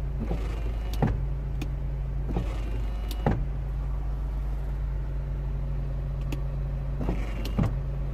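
Hydraulic pump of a 2002 Mercedes SLK's retractable roof running with a steady low hum, with a few light clicks and knocks scattered through it, as the roof tries to move but stays stuck.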